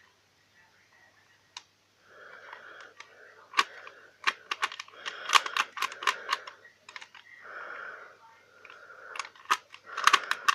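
A plastic Rubik's cube handled and turned in the hands: sharp plastic clicks in clusters over a soft rubbing sound, starting about two seconds in after a short quiet.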